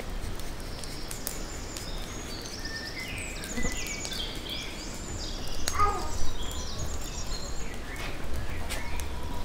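Small birds chirping and singing repeatedly in quick, high notes, over a low outdoor rumble that swells briefly about halfway through.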